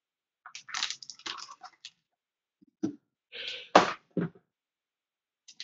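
Trading-card packaging being handled: foil pack wrappers crinkling and a few sharp knocks as packs and boxes are set down. The loudest knock comes near the middle.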